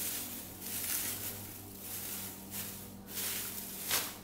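Shredded newspaper packing rustling and crinkling in repeated swells as hands dig through it, with a louder, sharper rustle near the end. A faint steady low hum sits underneath.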